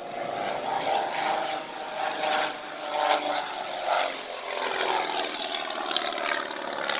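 Propeller aircraft engine running continuously, its pitch drifting up and down.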